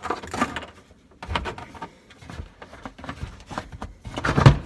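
Irregular clicks, scrapes and knocks of drain plumbing being handled under a kitchen sink as the hoses are pulled off a garbage disposal, with a louder thump about four and a half seconds in.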